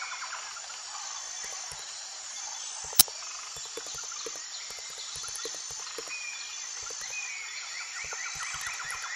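Insects chirping in a steady outdoor chorus, with rapid pulsed trills and a high repeated chirp, and a single sharp click about three seconds in.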